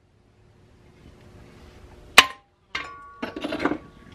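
Hand pop-rivet gun setting an aluminium pop rivet through a steel helmet shell: one sharp metallic snap with a brief ring about two seconds in, as the rivet sets. It is followed by a second of clattering and rattling from handling the tool and parts.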